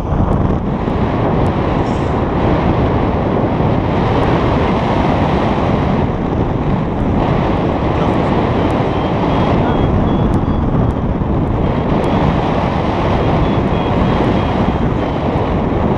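Wind rushing over the microphone in flight, a loud steady rush with no pitch.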